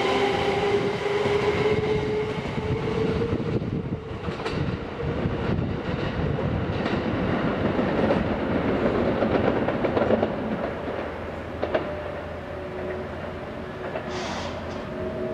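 Kintetsu 22600 series and 22000 series express electric train pulling out and running away down the line. Its traction motors whine in several tones that sink a little in pitch and fade over the first few seconds. Then comes wheel-and-rail running noise with light clicking over the rail joints, dying away as the train recedes.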